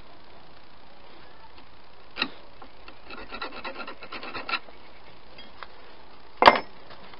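A mild steel strip and a wooden block being handled on a wooden workbench: a knock about two seconds in, a stretch of rubbing and scraping, then a louder sharp knock near the end.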